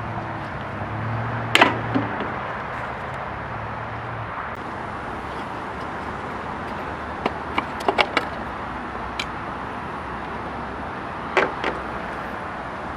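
Scattered sharp plastic clicks and knocks from a 2005 Chevy Silverado tail light housing being pulled off its side tabs and handled, a handful spread over several seconds. A steady outdoor background hiss runs under them.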